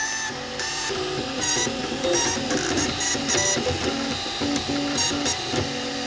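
MakerBot Replicator 3D printer printing, its stepper motors whining in short tones that jump to a new pitch several times a second as the print head moves, over a steady mechanical hiss.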